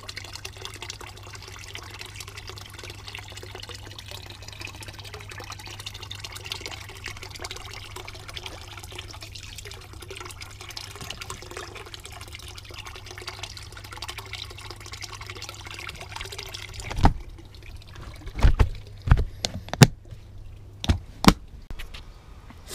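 Water splashing and trickling into the insulated tank of a compost water-heating system as the circulation pump returns water through a hose, over a steady low hum. About three-quarters of the way through the water sound cuts off and a handful of sharp knocks and bumps follow.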